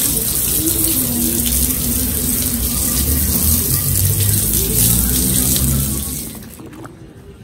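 Water running hard from a tap, cutting off about six seconds in.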